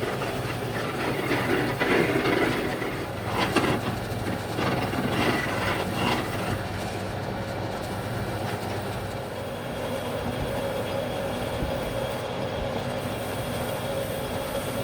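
A woodworking power tool's electric motor running steadily, with louder, rougher noise in the first several seconds.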